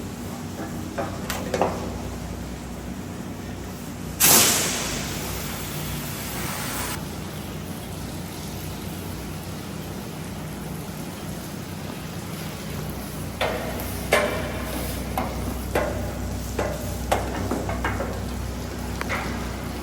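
A steady low machine hum, broken about four seconds in by a sudden loud hiss of a pressure washer's spray that lasts nearly three seconds, then scattered short knocks and clicks.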